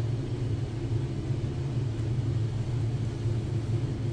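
Steady low hum of background room noise, with a faint click about two seconds in.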